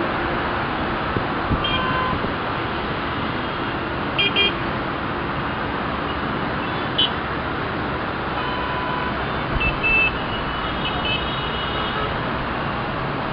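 Busy road traffic at a roundabout: a steady wash of engines and tyres, with short, high horn toots sounding several times, some in quick pairs.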